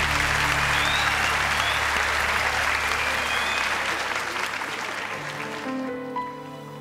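Studio audience applauding, loud at first and fading away over about five seconds, as a slow instrumental intro starts near the end.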